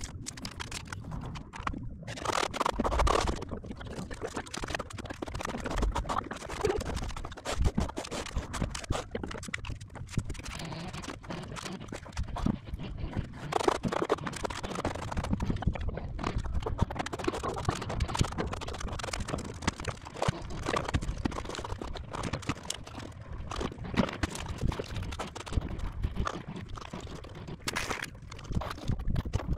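Trowels scraping and knocking as cement adhesive is spread over foam insulation boards and scooped from a plastic bucket: a run of irregular scrapes and taps.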